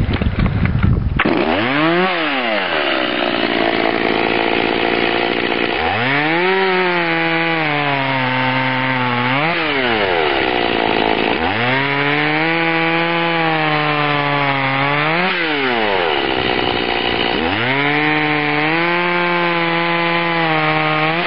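Stihl MS 180 C two-stroke chainsaw starts at full throttle about a second in, then makes three cuts through a log. On each cut the engine pitch drops and holds steady while the chain is in the wood, then rises sharply as the chain breaks through.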